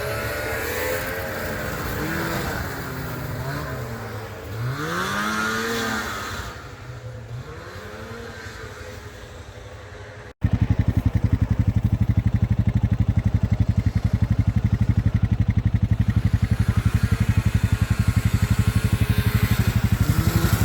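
Snowmobile engines running past, their pitch rising and falling as the sleds go by. About ten seconds in, a sudden cut to a louder engine running close and steady with a fast even pulse.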